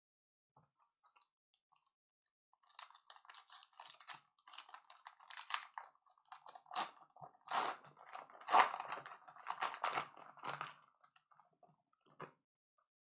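Trading-card pack wrapper being crinkled and torn open, with cards handled: a run of irregular crackling and crunching from about three seconds in to about eleven seconds, loudest near the middle, with a few scattered ticks before and after.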